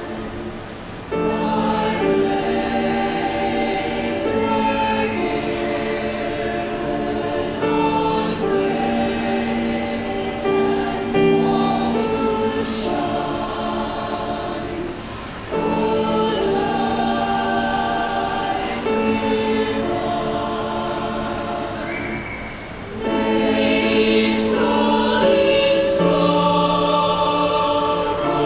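Chamber choir singing a Christmas piece in long, held chordal phrases. There are brief breaks where new phrases begin, about a second in, about halfway through and a few seconds before the end.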